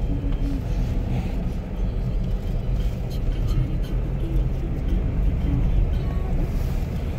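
Steady low rumble of a moving car's engine and tyre noise, heard from inside the cabin.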